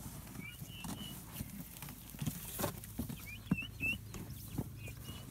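Young white turkeys peeping: short high chirps in three small groups. Under them, light scattered ticks and rustling.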